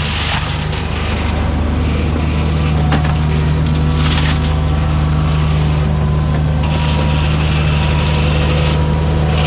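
Forestry mulcher on heavy equipment running steadily at high engine speed, with recurring bursts of grinding and crunching as the mulching head chews through brush and wood.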